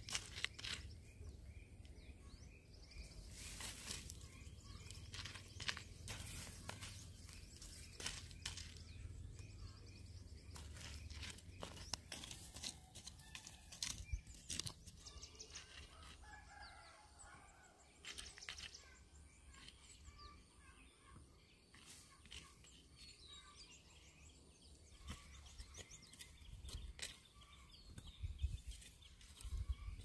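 Faint animal calls among scattered knocks and rustling.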